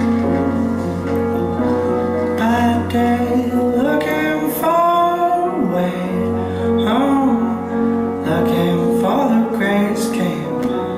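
Recorded music played as a dance accompaniment: held instrumental notes over a steady low bass, with wordless sung notes that slide in pitch a few times.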